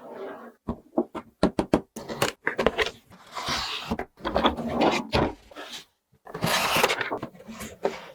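Toys being handled: a run of small sharp clicks and knocks, with two longer stretches of scraping or rustling, about three seconds in and near the end.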